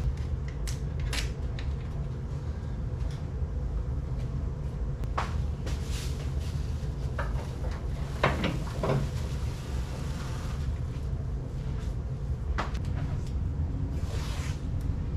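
Masking tape being pulled off the roll and torn in short rasping strips, with scattered clicks and knocks of handling, over a steady low rumble.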